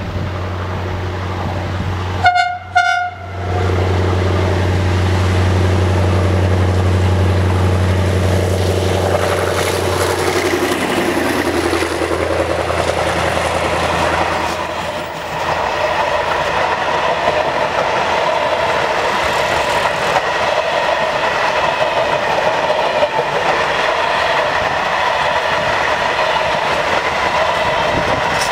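TCDD DE24000-class diesel-electric locomotive with its Pielstick 16PA4 V185 engine passing: a steady low engine drone, two short horn blasts about two seconds in, and the engine note dropping in pitch as it goes by around ten seconds in. After that the train's wagons roll past with a steady wheel noise and clickety-clack on the rail joints.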